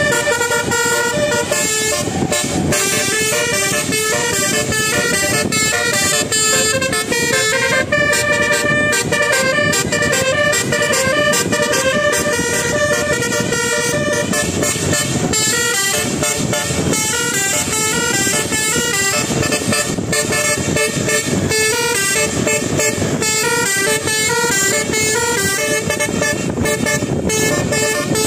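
Bus 'telolet' musical air horn of the Basuri type playing a long melody of quick stepping notes, some held longer, over steady background noise.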